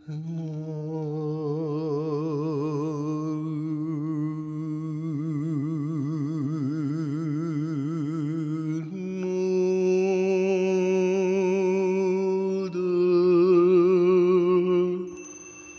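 Wordless vocal toning: one voice holding long, chant-like notes with a wide, slow vibrato. The note moves up about nine seconds in, changes again near thirteen seconds, and fades out near the end.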